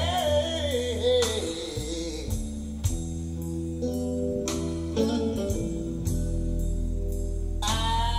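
Recorded song played over Wolf von Langa loudspeakers in a demonstration room: a singing voice with plucked guitar. The voice drops out after about two seconds, leaving sustained instrument notes, and comes back near the end.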